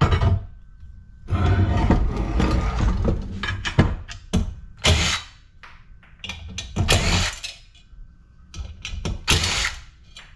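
Metal parts of a light fixture being handled and pried apart: irregular clattering, scraping and a few sharp knocks.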